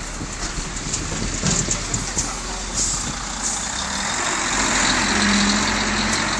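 A road vehicle, probably a truck, passing with engine and tyre noise that grows louder in the second half, with a steady low engine tone near the peak.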